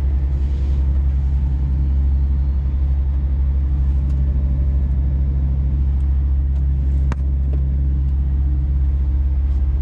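Scania truck's diesel engine running steadily under way, heard inside the cab as an even low drone. A single sharp click about seven seconds in.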